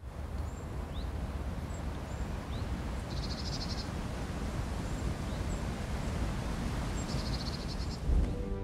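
Winter woodland ambience: steady wind noise with a low rumble on the microphone, a few faint high bird chirps, and twice a short high rapid trill from a small bird, about three seconds in and again near seven seconds.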